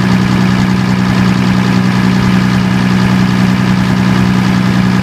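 Diesel generator engine running steadily at constant speed on diesel fuel alone, with a steady low hum.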